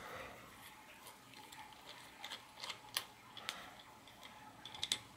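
Faint, scattered light clicks of small metal parts being handled by hand at a bicycle crank arm: the crank nut and washer coming off the bottom bracket spindle.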